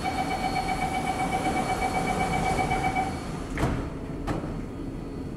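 Metro train door-closing warning: a steady high tone for about three seconds, then two sharp knocks as the train's sliding doors and the platform screen doors shut, over the hum of the stopped train.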